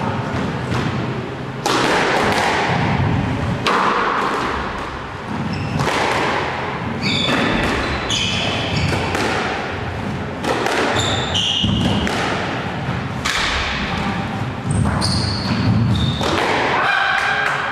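Squash rally: the ball struck by rackets and hitting the court walls, a sharp echoing thwack every second or two, with short high squeaks and low thuds from the players' footwork.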